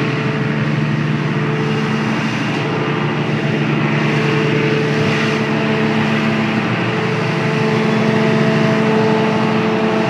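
A fire truck's diesel engine runs steadily close by, on the truck that carries a Bronto Skylift aerial platform. Its note shifts slightly about halfway through.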